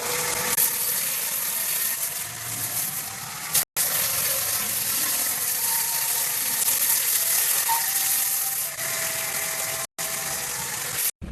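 A power tool working wood, giving a steady grinding hiss with a faint whine in it, broken off abruptly for an instant three times.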